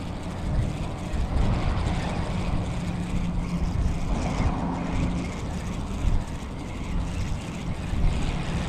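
Strong gusty wind buffeting the microphone in an uneven low rumble, with highway traffic running under it and a faint engine hum in the middle and again near the end.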